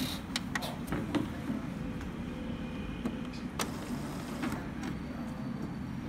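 Epson L385 inkjet printer switched on: a click of the power button, then scattered clicks and a low steady mechanical whir as the printer starts its power-up.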